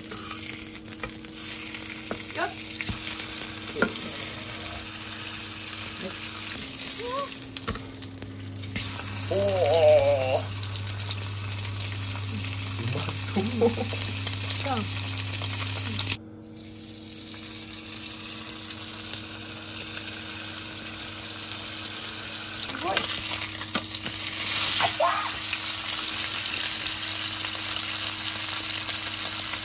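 Wagyu steak sizzling steadily as it sears in oil in a nonstick frying pan. The frying hiss drops away suddenly about halfway through and builds back up, and a brief wavering tone sounds about ten seconds in.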